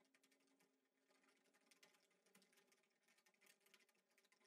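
Near silence, with very faint, rapid computer keyboard typing: a quick run of keystroke clicks.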